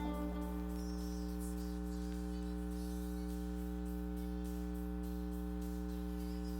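Steady electrical mains hum with a buzz of many even overtones, unchanging throughout.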